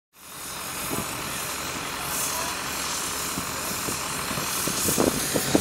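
Construction machinery engines running steadily, with a few short knocks near the end.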